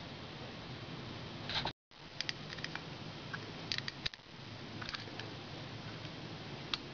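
Small metal tools clicking and scraping against a Harley-Davidson Sportster piston as the retaining clip is worked into the gudgeon-pin bore. The light, scattered clicks come in short clusters over a steady low hum, and the sound cuts out completely for a moment just before two seconds in.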